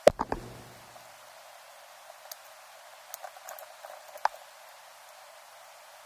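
Small clicks and ticks of a screwdriver working the terminal screws of a plastic light switch mech while the switch plate is handled, with a sharper knock right at the start and another clear click about four seconds in.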